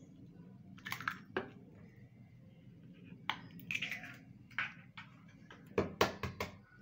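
Eggs being cracked and their shells broken open by hand over a mixing bowl: a series of short, sharp cracks and clicks, the loudest cluster about six seconds in.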